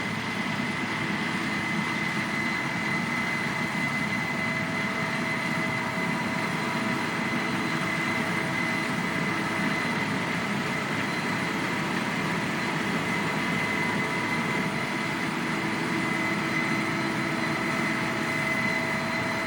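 Case combine harvester on tracks running steadily, an even machine noise with a steady high whine over it.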